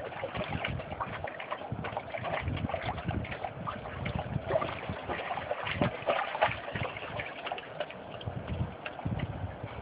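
Shallow water splashing irregularly as two Labrador retrievers wrestle in it, with wind buffeting the microphone.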